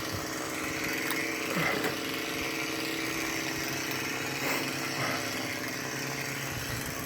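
Chainsaw engine running steadily at a distance, its pitch holding level with no sharp revving.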